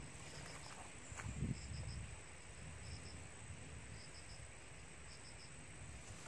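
Crickets chirping in short groups of two or three pulses about once a second, over a steady thin high-pitched hum and a low rumble. There is a brief knock about a second and a half in.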